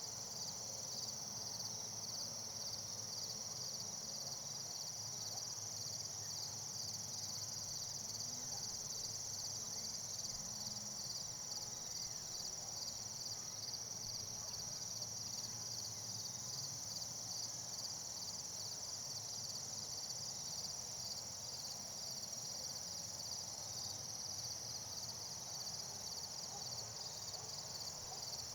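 Insects calling steadily outdoors: a continuous high-pitched shrill with a regular pulsing chirp about twice a second.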